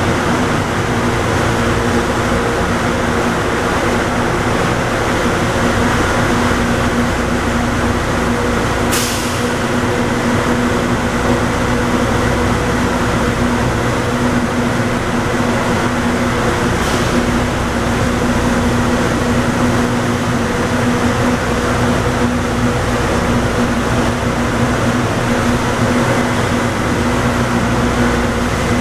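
Automated airport people-mover train running steadily. A constant rolling rumble with a steady electric hum, and two brief sharp ticks partway through.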